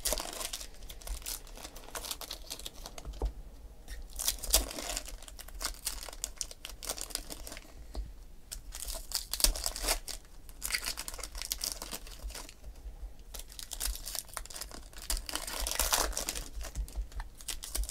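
Foil trading-card pack wrappers being torn open and crinkled, in irregular bursts every few seconds, with cards slid and flipped by hand in the quieter stretches between.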